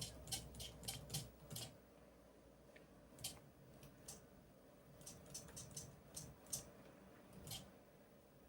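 Faint, irregular clicks of computer keyboard keys being pressed to send commands, in small clusters with pauses between them.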